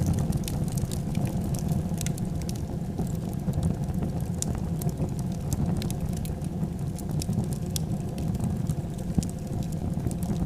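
Wood fire burning: a steady low rumble of flames with frequent sharp, irregular crackles and pops.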